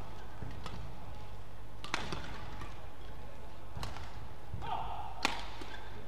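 Badminton rackets striking the shuttlecock in a doubles rally: four sharp hits roughly a second and a half apart, the last the loudest. A brief squeak sounds just before the last hit.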